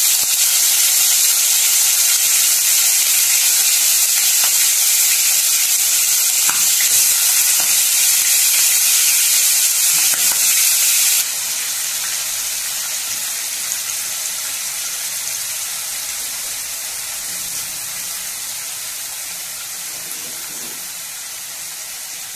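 Yogurt-marinated chicken drumsticks sizzling hard in hot oil in a frying pan, a dense, even hiss. It drops abruptly about halfway through, then slowly fades.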